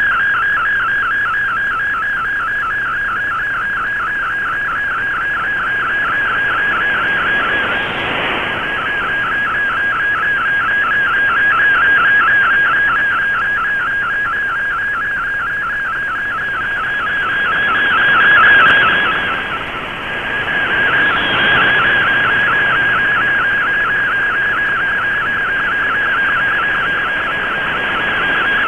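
Shortwave digital-mode picture transmission (MFSK image sent with an MFSK32 broadcast) heard through an Icom IC-R8600 receiver: a rapidly warbling data tone at a steady mid-high pitch. It fades and is washed with static about 8 seconds in, and again for a few seconds past the middle.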